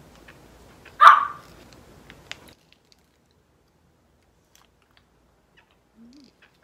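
A dog barks once, sharply, about a second in, followed by a few faint clicks.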